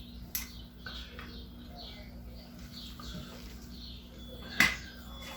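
A faint click just after the start and a sharp, loud click about four and a half seconds in, over a low steady hum and faint bird chirps.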